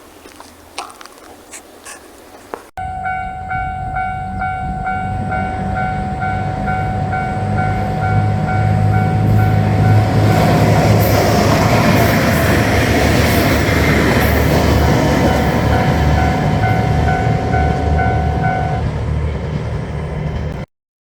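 Japanese level-crossing warning bell ringing about twice a second as a diesel train passes, with engine rumble and wheel noise loudest in the middle. The sound starts abruptly a few seconds in and cuts off near the end.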